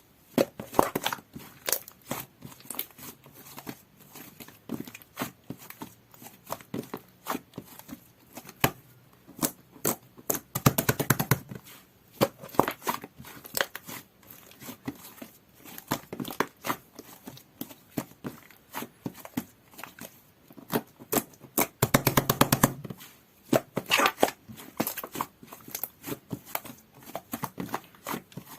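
Jelly-textured clear slime being squished and stretched by hand, making rapid, irregular wet clicks and pops. Two louder bursts of dense crackling come about a third of the way in and again about three quarters through.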